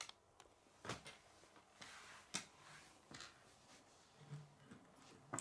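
Plastic K'nex rods and connectors clicking and knocking as they are handled and snapped together: a few scattered sharp clicks with a brief rustle of pieces, otherwise quiet.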